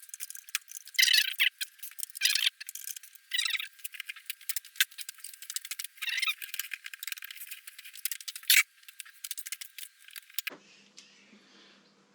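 Metal tools and parts clinking and rattling in irregular bursts as they are handled, with a few sharp clicks. About ten and a half seconds in, the clatter stops and only faint room sound remains.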